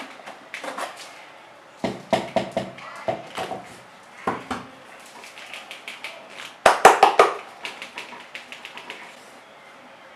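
Irregular clusters of sharp clicks, taps and knocks, like hard objects being handled. The loudest group comes about two-thirds of the way through.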